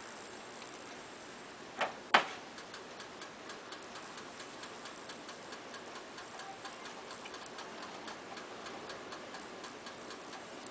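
Pot of milk simmering on the stove, with faint ticking pops of bubbles several times a second. Two sharp knocks come about two seconds in.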